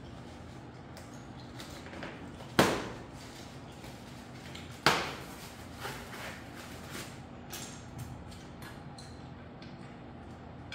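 Two sharp knocks about two seconds apart, each dying away quickly, then lighter clicks and handling noises, from a folding electric bike being handled while its packaging is stripped off.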